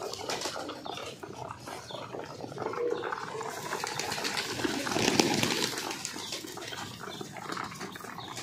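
A flock of pigeons crowding onto grain poured on a concrete roof: wings flapping, seed pattering and busy pecking and scuffling, with cooing, loudest about five seconds in.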